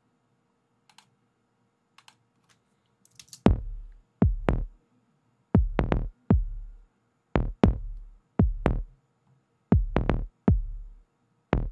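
Two kick drum tracks, a heavy kick and a ratty, dirty-edged one, playing back together in a repeating beat. Each hit has a sharp attack and a deep boom. The kicks start about three and a half seconds in, after near silence broken by a few faint clicks.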